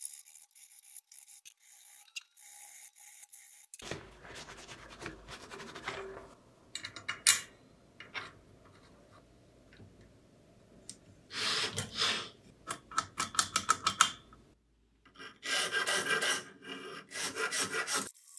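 Short cut-together bursts of hand metalwork on aluminium parts: scraping, tapping and parts being fitted. These end in a run of rapid rasping strokes of a hand file along the edge of an aluminium plate, deburring it.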